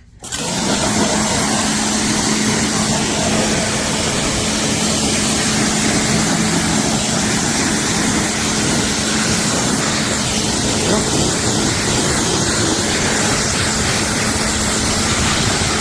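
Pressure washer spraying water through a 25-degree nozzle: a loud, steady hiss of the water jet over the constant drone of the washer's motor and pump.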